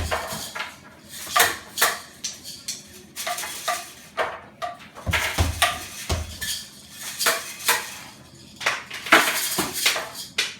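Hard objects clinking and knocking in an irregular run of sharp strikes, with a few deeper thumps, about a second in and near the end.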